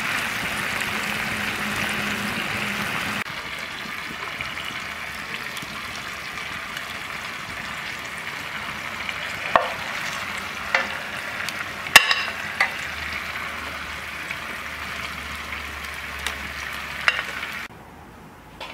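Beef steaks sizzling in a cast-iron pan over a wood fire, a steady frying hiss. A few sharp knocks come in the second half as the steaks are lifted out with a wooden spoon, and the sizzle cuts off near the end.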